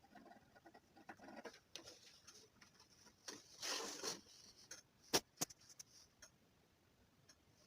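Faint scratching and rustling of hand work with a pyrography pen, loudest about halfway through, with two sharp clicks a little after that.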